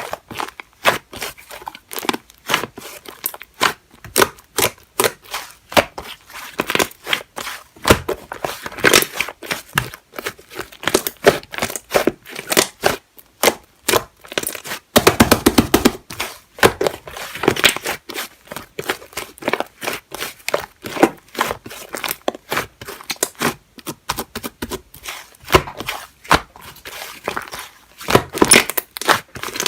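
Slime being squeezed, poked and stretched by hand, giving a dense, irregular run of crackling and popping clicks, thickest about halfway through.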